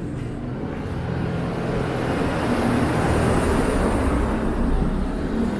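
A motor vehicle passing close by, its engine and tyre noise swelling to a peak about three to five seconds in and starting to fade near the end.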